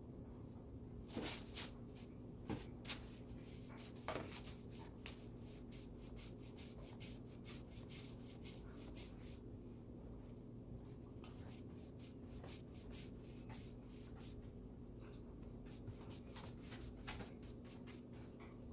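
Paintbrush bristles brushing paint onto the flat wooden side panel of a table in quick, repeated back-and-forth strokes, with a few louder knocks in the first few seconds and a short pause in the strokes about halfway through.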